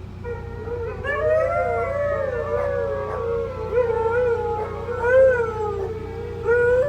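Several huskies howling together, their long wavering howls overlapping and sliding up and down in pitch, over a steady low hum.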